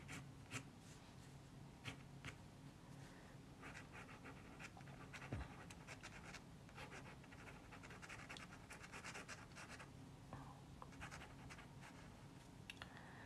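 Faint scratching of a pencil on paper, sketching in short strokes, with a few light taps.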